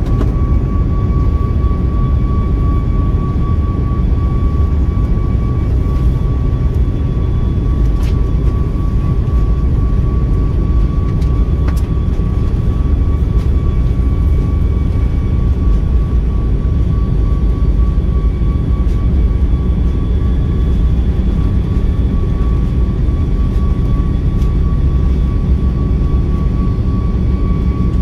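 Steady cabin noise of a Boeing 737 MAX 9 on the ground with its CFM LEAP-1B engines at idle: a deep, even rumble with a steady high whine over it, and a couple of faint clicks.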